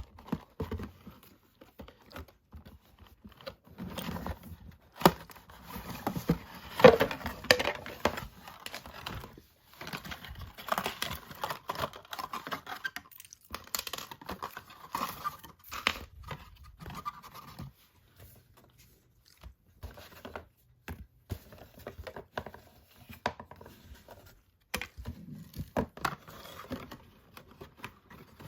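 Hands working packaging open and pulling items out: irregular rustling, scraping and tearing with scattered knocks and clicks.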